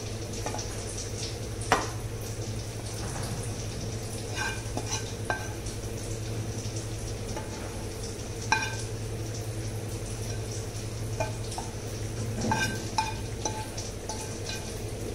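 A spatula scraping fried onion-tomato masala out of a nonstick frying pan into a stainless-steel mixer jar, with scattered scrapes and a few sharp knocks, some followed by a short metallic ring. The loudest knocks come about two seconds in, near the middle and about four fifths of the way through, over a steady low hum.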